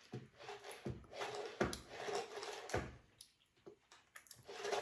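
Handling noise: four dull thumps about a second apart, with rustling between them, quieter near the end.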